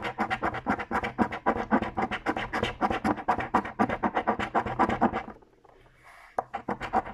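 A coin scraping the latex coating off a scratch-off lottery ticket in quick back-and-forth strokes, several a second. It stops briefly about five seconds in, with a single click, then the scraping resumes near the end.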